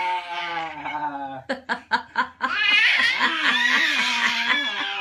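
A person laughing: a quick run of about five short breathy bursts about a second and a half in, then drawn-out laughter with a bobbing, wavering pitch.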